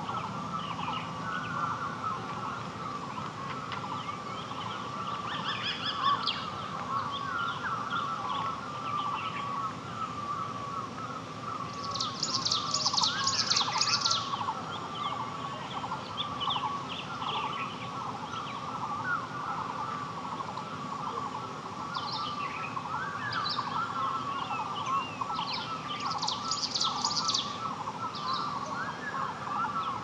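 Hillside forest ambience: a steady chorus of many short calls at one pitch, with scattered bird calls over it. A louder burst of high twittering comes about twelve seconds in and again about twenty-six seconds in.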